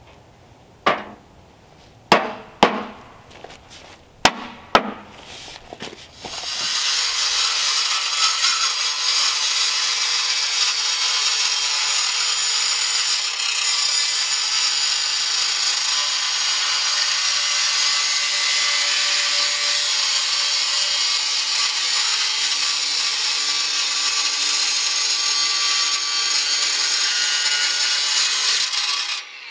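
DeWalt cordless angle grinder with a cut-off wheel slicing through black steel stovepipe: a loud, steady, high-pitched grinding hiss that starts about six seconds in and stops abruptly just before the end. Before it, several sharp knocks.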